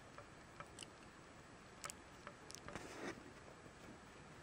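Faint handling sounds: scattered small clicks and, a little over halfway through, a brief rustle as fingers move a small plastic figure against its card packaging.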